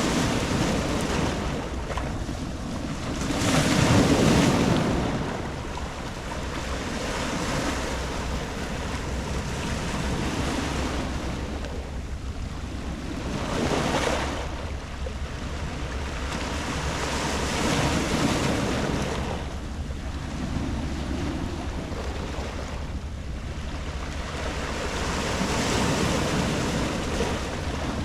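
Sea waves breaking and washing on a pebble beach, each surge swelling and fading every four to eight seconds, the biggest about four seconds in.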